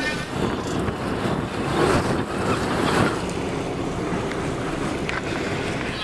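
Wind buffeting the microphone over sea wash along a boat's hull, with a faint low steady hum from the boat underneath and gusts swelling about two and three seconds in.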